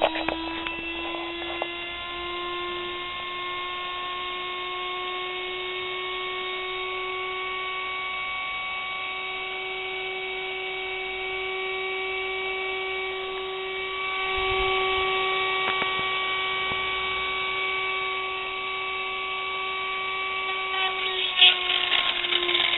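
Brushed universal motor from a kitchen mixer running fast on about 112 V of rectified, filtered DC: a steady high whine with overtones, its pitch creeping up a little in the first seconds. A few rattling clicks come near the end.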